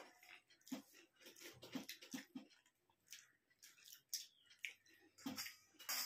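Quiet, irregular chewing and lip-smacking of people eating rice and fried vegetables by hand, with soft clicks of fingers working the food in steel plates.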